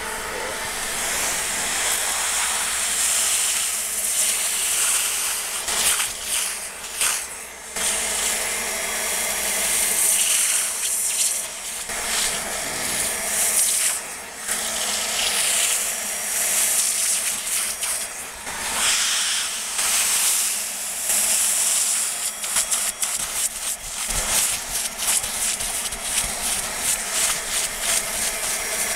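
Bissell Little Green portable upholstery cleaner's suction motor running as its hand nozzle is drawn across a cloth truck seat, slurping dirty water out of the fabric. Steady hiss whose level dips briefly several times as the nozzle moves.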